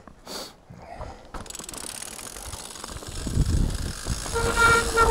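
Mountain bike rolling down a dirt trail: a couple of knocks at first, then tyre and wind rumble that grows louder from about a second and a half in. Near the end the bike's brakes squeal with a steady high tone.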